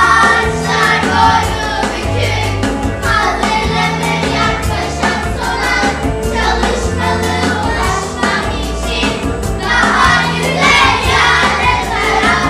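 A song: a group of voices singing together over music with a steady beat and a bass line.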